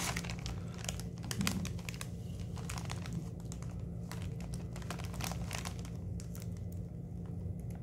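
Crinkling of a Cheetos Flamin' Hot Puffs plastic snack bag as a hand rummages inside it: irregular rustles, busiest in the first few seconds and sparser after.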